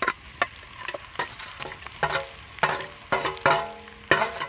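Steel spoon scraping and clinking against a steel plate and the aluminium pot's rim as fried ray fish pieces are pushed off the plate into the pot. Small clicks at first, then several louder ringing clinks about every half second in the second half, over a light sizzle.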